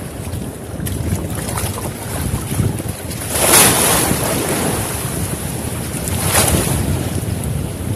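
Sea waves washing and splashing against the posts of a bamboo platform, with two louder splashes about three and a half and six seconds in, over a steady rumble of wind on the microphone.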